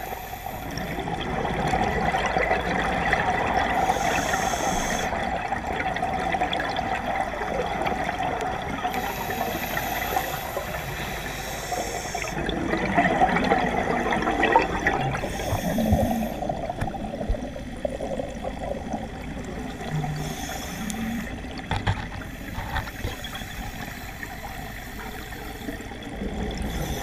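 Underwater sound of a scuba diver breathing through a regulator: exhaled air bubbling and rushing past the camera, in waves every few seconds, quieter in the second half.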